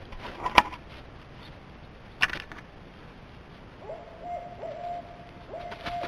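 Barred owl hooting: a run of short hoots starting about four seconds in, leading into a long drawn-out hoot. Two sharp knocks come earlier, about half a second and two seconds in.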